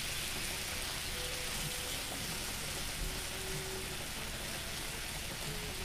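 Chicken pieces sizzling steadily in hot oil in a frying pan, stirred now and then with a plastic spatula that knocks faintly against the pan.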